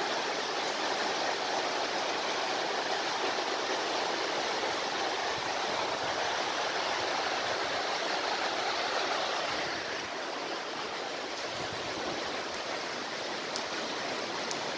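Heavy rain falling steadily, a dense even hiss that eases slightly about ten seconds in.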